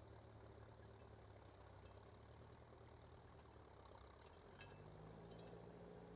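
Faint, steady running of a little grey Ferguson tractor's engine while it pulls a two-furrow plough. Its note rises slightly about five seconds in, just after a single click.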